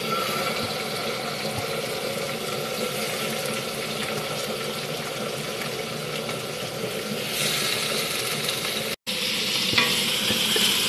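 Salmon pieces sizzling as they fry in oil in a nonstick pan, the sizzle growing louder about two-thirds of the way through. After a brief break, vegetables sizzle in a steel pot as they are stirred with a wooden spatula, with a single knock against the pot.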